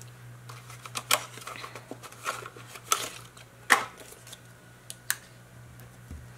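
Plastic pack of foam adhesive dots being handled and dots peeled from their backing: scattered small crackles and clicks with soft rustling, one sharper click a little after halfway.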